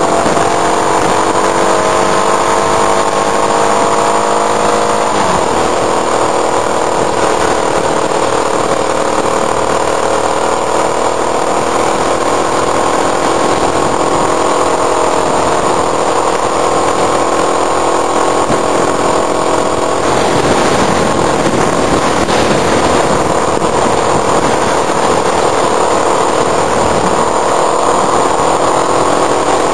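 Motorcycle engine running under load while riding uphill, heard from a mirror-mounted camera; the revs climb, then fall sharply about five seconds in and run on steadily. Wind and road noise hiss under the engine and grow louder about twenty seconds in.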